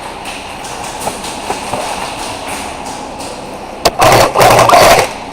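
Airsoft gun fired close to the microphone: a single click, then two rapid full-auto bursts lasting about a second in all, near the end.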